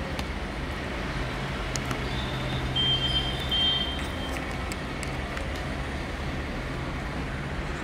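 Low steady rumble of a helicopter flying at a distance. About three seconds in, a high whistling tone sounds twice.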